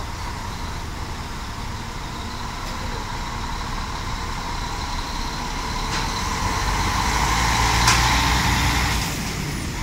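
Mercedes-Benz O500RS 1836 coach's rear-mounted six-cylinder diesel engine pulling away at low speed. It grows louder as the rear of the bus passes, peaking about eight seconds in with a short sharp sound, then falls away a second later.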